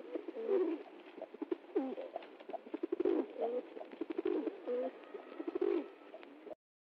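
Rock pigeon cooing: a run of low, rolling coos that breaks off abruptly about six and a half seconds in.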